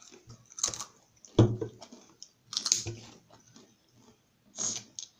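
A few separate crunches and clicks from a chips packet being opened and the chips handled and bitten, the loudest a sharp knock about a second and a half in.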